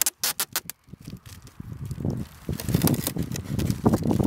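Packing tape pulled off the roll in a quick run of short crackling rips during the first second, then more intermittent tape crackles over a rough rumble of wind on the microphone as the tape is wrapped around a foam plane's motor mount.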